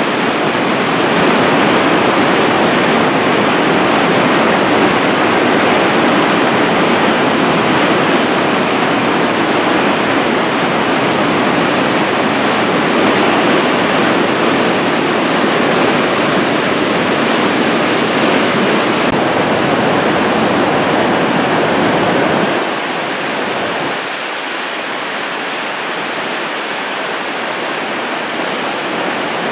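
Whitewater river rushing through a narrow rock chute: a loud, steady rush of churning water. About three-quarters of the way through, it becomes quieter and thinner, with less low rumble.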